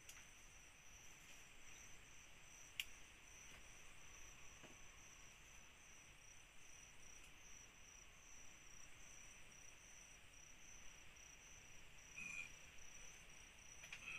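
Faint chorus of night insects: a steady, high, pulsing trill over a soft insect hiss, with one sharp click about three seconds in.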